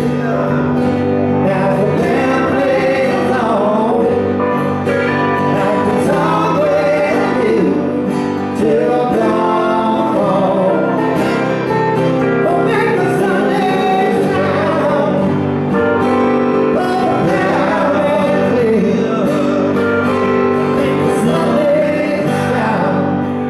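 Live acoustic band performance: strummed acoustic guitars with a man singing lead into the microphone.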